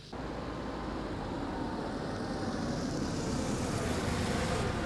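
Road vehicle noise that starts suddenly and swells gradually over about four seconds, as a vehicle draws near.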